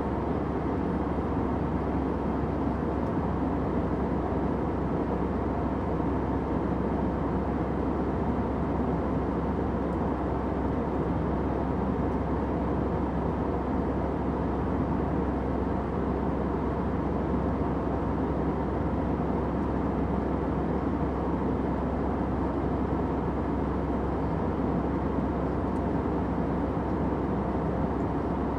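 Airplane cabin noise: a steady, unchanging rumble with a faint steady hum in it, heaviest in the low and middle range.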